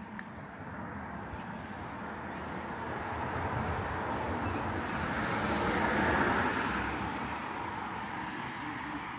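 A passing vehicle: a steady noise that slowly swells to its loudest about six seconds in, then fades.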